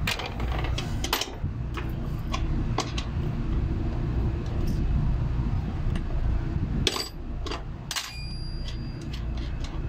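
Scattered light metallic clicks and clinks from work on a package AC unit's condenser fan motor, over a steady low hum, with two sharper clicks about seven and eight seconds in.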